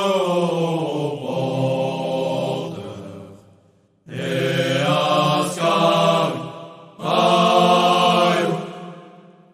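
Slow, chant-like vocal music as a backing track: long held sung notes in phrases of a few seconds, with short breaks between them.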